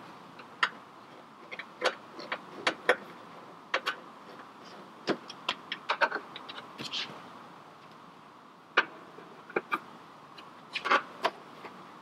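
Phillips screwdriver clicking and scraping against screws in a Jeep TJ's plastic lower dash panel as they are backed out and the panel is handled. It makes scattered sharp clicks and ticks that come in clusters.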